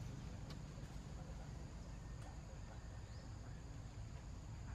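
Quiet outdoor background: a steady low rumble with a faint, even high insect buzz, and a few soft clicks.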